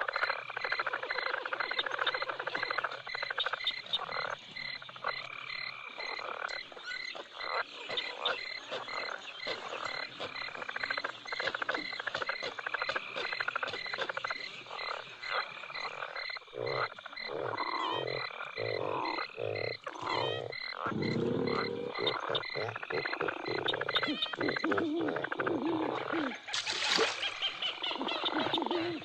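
Recorded swamp ambience: many frogs croaking in overlapping calls, over a high, evenly pulsing chirp. The chirp stops about three-quarters of the way through, while deeper, louder croaks take over in the second half.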